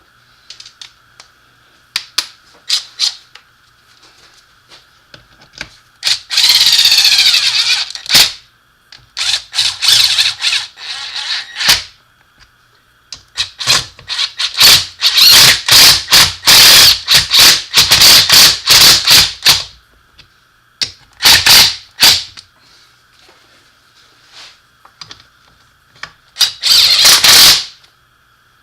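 Small impact wrench running bolts into an NP247 transfer case housing in short bursts of a second or two, snugging them without torquing, with sharp clicks of bolts and sockets between the bursts.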